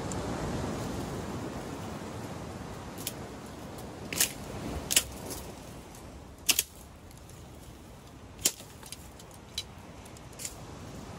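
About seven sharp clicks and knocks, scattered irregularly, over a soft rushing noise that is loudest at the start and fades over the first few seconds.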